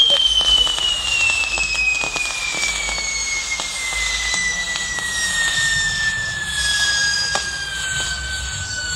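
Spinning firework wheel on a castillo, hissing as it throws sparks. A whistling tone glides slowly and steadily down in pitch over several seconds.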